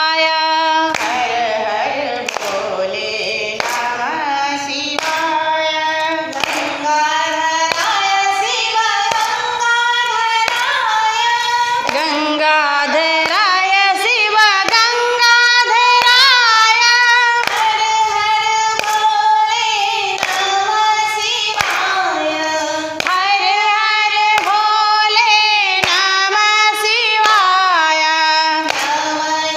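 Group of women singing a Hindu devotional bhajan together, with steady hand-clapping keeping time.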